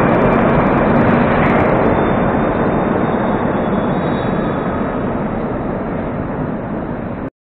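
Metro train of the 81-740.4 type running away into the tunnel after leaving the platform, a dense rumble of wheels and running gear that fades steadily as it recedes. The sound cuts off abruptly near the end.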